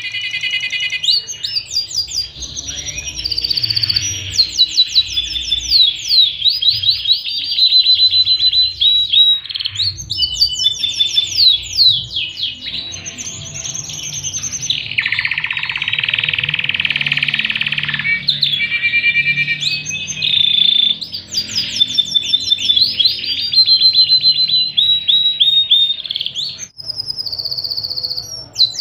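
Pied (panda) domestic canary singing a long, fast song of rapid trills and repeated chirps, with a denser continuous roll lasting about three seconds in the middle.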